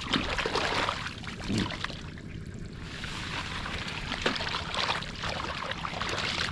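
Shallow water sloshing and splashing in uneven bursts as someone moves through it and gropes for fish by hand.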